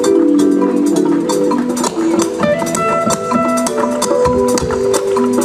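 Live band playing an upbeat jazzy number, with drums and hand percussion tapping out a busy rhythm under held guitar and keyboard chords.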